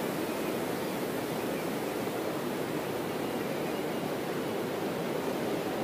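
Steady, even rushing noise of water, unchanging throughout.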